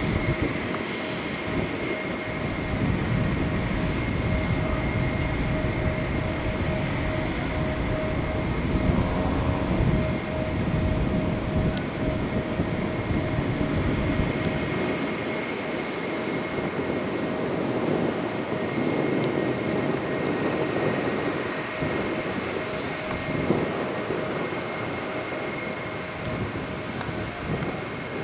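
Airbus A320-214's CFM56 turbofan engines running, a steady two-tone whine over a deep rumble.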